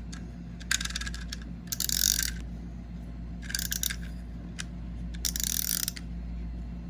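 Clockwork mechanism of a small wind-up swimming duck toy clicking and whirring in several short bursts, a few separated by pauses.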